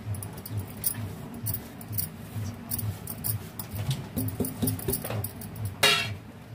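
Spice powder scraped off a steel plate into a glass bowl, with light clicks and scrapes, then a single ringing metallic clink near the end as the plate is set down. Soft background music with a steady beat runs underneath.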